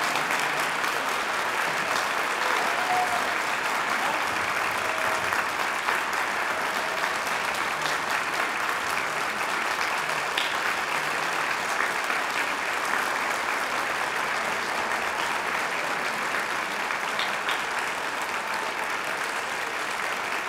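Large concert audience applauding steadily, a dense sustained clapping that eases off slightly toward the end.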